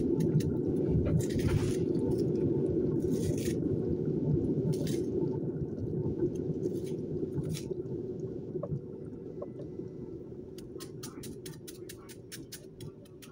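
Kitchen knife cutting through a hand-held onion, a few short scraping strokes and then a quicker run of crisp clicks near the end, over a steady low rumble that slowly fades.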